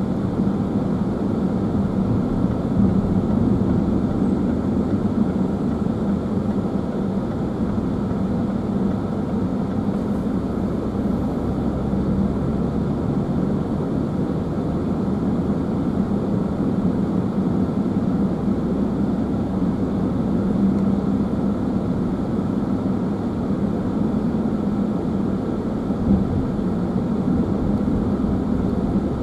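Steady engine and tyre noise of a car driving along at road speed, with a constant low hum.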